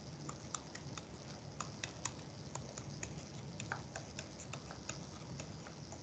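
Faint, irregular small clicks and taps of a stylus on a pen tablet as text is handwritten in digital ink, a few ticks a second, over a low steady background hiss.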